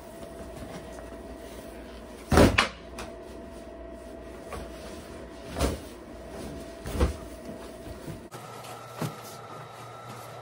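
Four dull thumps and bumps as a folded sauna blanket is handled and set down on a massage table, the loudest about two seconds in, over a faint steady hum.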